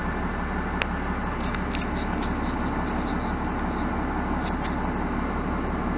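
Steady cabin noise of a 2017 Nova Bus LFS diesel transit bus, heard from inside, its engine idling while it stands at a stop. There is a sharp click just under a second in and a few faint ticks later.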